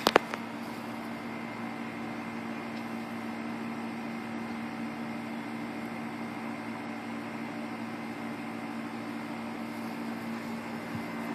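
Steady hum with a constant low tone from a car engine idling, the 2006 Pontiac GTO's V8, with two sharp clicks just after the start.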